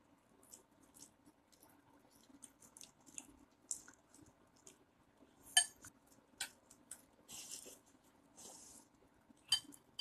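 A small kitten chewing a piece of food held in fingers: faint, irregular crunching clicks, with a louder crunch about halfway and another near the end, and two short scratchy bursts in between.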